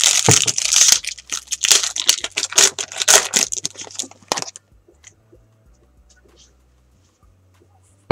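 Bowman Chrome baseball card pack wrapper being torn open and crinkled by hand for about four and a half seconds, then only faint ticks of cards being handled, and a single sharp tap at the very end.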